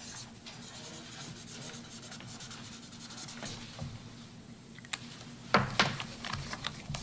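Pen scratching on paper as a proclamation is signed, with a few sharp clicks near the end.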